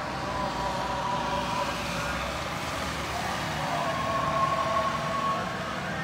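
A prayer chanted over a mosque minaret's loudspeaker, in long, drawn-out melodic notes that slowly waver in pitch.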